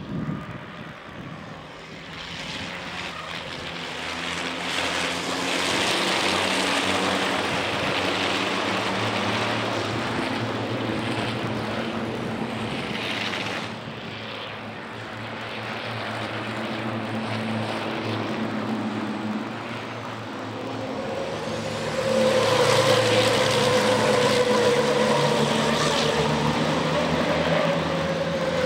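Diesel engines of a pack of racing trucks running at speed on track, louder for the last several seconds.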